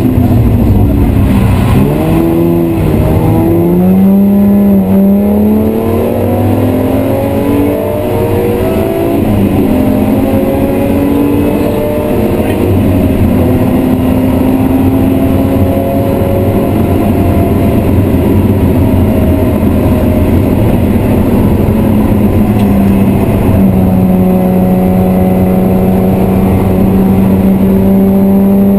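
BMW M3 E36's 3.0-litre straight-six under hard track driving, heard from inside the cabin. The engine pitch drops near the start, climbs in steps over the next several seconds, then rises slowly through a long pull, with a shift about 23 seconds in.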